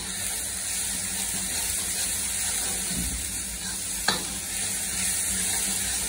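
Onion, tomato and ginger masala sizzling in a hot karahi as a metal ladle stirs and scrapes through it, with one sharp clink of the ladle against the pan about four seconds in.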